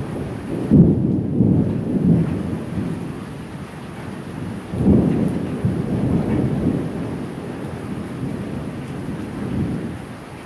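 Rolling thunder rumbling over steady rain, swelling loudest about a second in and again about five seconds in, then dying away near the end.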